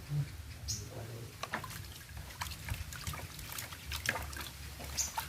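Water trickling and dripping in small irregular drops and splashes as a small pet bird is given a bath.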